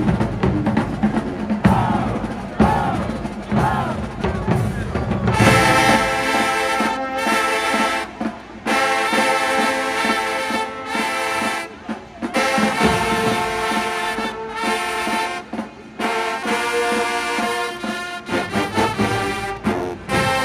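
High school marching band playing its field show. After a low, heavy opening of about five seconds, the brass comes in loud with held chords, broken by short cut-offs.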